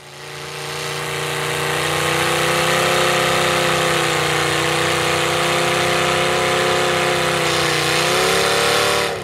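1980s Ford pickup's V8 running through upright exhaust pipes, held at high, steady revs under load while the tires spin in deep mud. The revs climb a little near the end.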